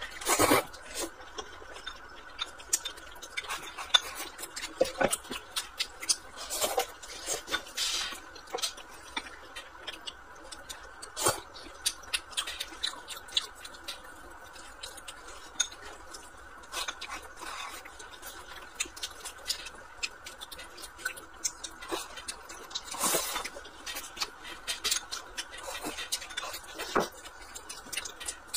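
Close-up eating sounds: slurping and chewing mouthfuls of glass noodles and rice, with chopsticks clicking against a glass bowl and plastic food trays in irregular short clicks and smacks.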